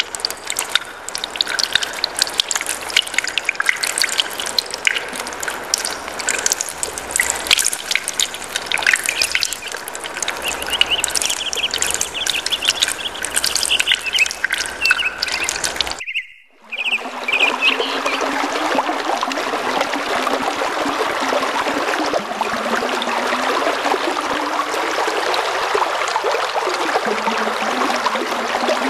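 Running water splashing, breaking off briefly about sixteen seconds in and resuming as a steadier, even rush.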